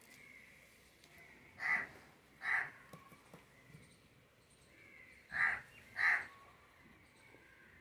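A crow cawing four times, in two pairs of short, nasal caws.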